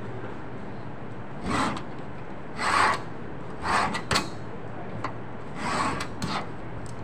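Four rasping strokes of a hand tool scraped across a piece of material on a worktable, each about half a second long, with two short sharp taps between the later strokes.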